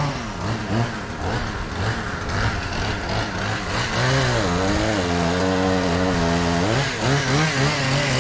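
A gasoline engine revving up and down, then running at a steady high speed from about four seconds in, with a brief dip near the end.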